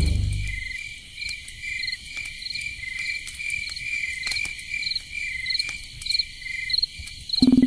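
Crickets chirping in a steady, even rhythm, a little under two chirps a second, with faint ticks beneath.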